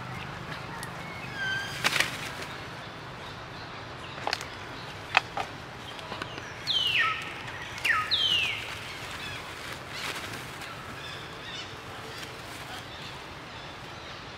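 Young monkeys squealing while they wrestle: two loud screams about six and eight seconds in, each falling steeply in pitch, after a few short high calls and some sharp clicks.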